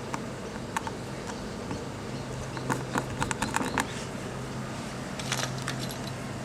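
Small sharp clicks and taps of screws and a screwdriver being worked into a plastic radio housing, with a quick run of clicks around the middle and a few more near the end. A steady low hum runs underneath.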